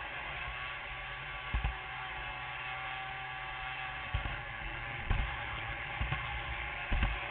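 G-scale model train running on its track: a steady electric motor and gear whir, with a few low thumps.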